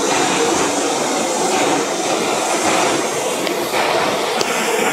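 New York City subway train running at speed through a tunnel, heard from inside the car: a steady, loud rush of wheel and rail noise.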